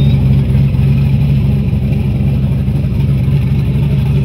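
Turbocharged fourth-generation Chevrolet Camaro SS race car's V8 idling loud and steady as the car creeps forward.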